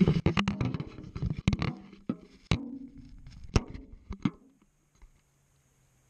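GoPro tumbling inside a front-loading washing machine drum with towels, knocking against the steel drum. It starts suddenly with a dense clatter of sharp knocks for about two seconds, then a few separate knocks, and stops about four and a half seconds in, leaving a faint low hum.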